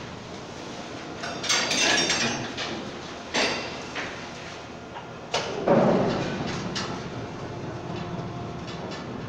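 Rotary car dumper with a coal hopper car clamped inside: a steady mechanical background broken by metal clanks and bangs and a rattling stretch. The loudest bang comes about five and a half seconds in, followed by a heavy low rumble.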